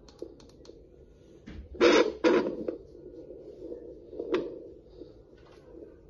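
Pocket fetal Doppler's speaker hissing and crackling as the gelled probe is moved over the pregnant abdomen in search of the fetal heart, with two loud scratchy bursts about two seconds in and a sharp crackle a couple of seconds later.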